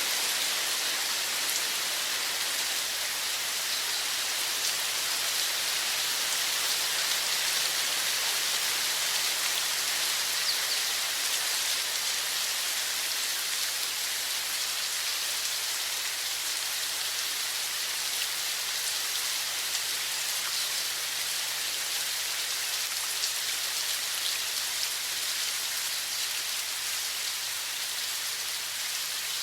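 Running water: a steady, even rush of splashing water, with fine droplet ticks.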